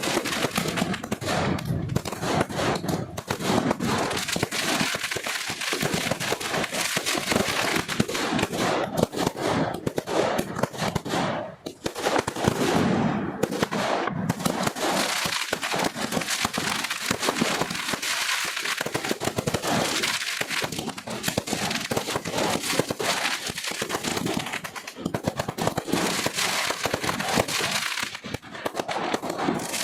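Fireworks and firecrackers going off in a dense, continuous rapid crackle of bangs, with a brief lull about 12 seconds in.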